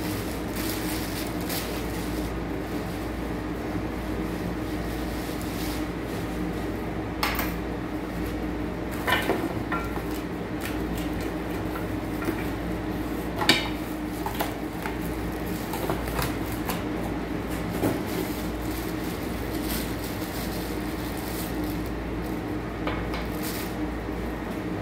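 A plastic-wrapped Tefal electric plancha grill and its cardboard packing being handled during unpacking, with scattered clicks and knocks, the sharpest about 13 seconds in. A steady low hum runs underneath.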